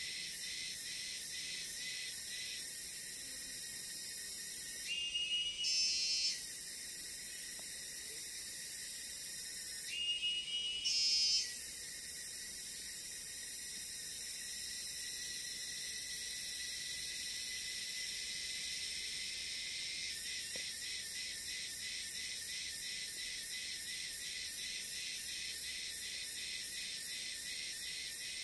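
Forest insect chorus: crickets and other insects trilling high and steady. Twice, about five and ten seconds in, a louder rising call sounds over it. Later the chorus settles into an even pulse of about three beats a second.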